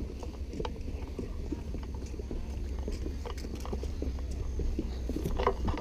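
Footsteps on a path: irregular short crunches and ticks over a steady low rumble, with a louder cluster of sounds near the end.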